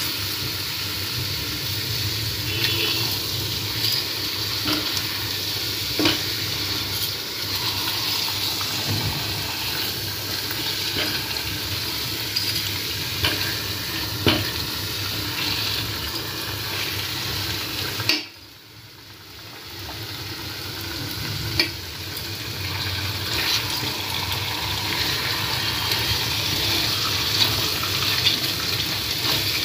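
Marinated chicken pieces sizzling in hot oil in a kadai on a low flame, with scattered scrapes and taps of a spatula turning them. About two-thirds of the way through the sizzle drops away suddenly, then builds back over a few seconds.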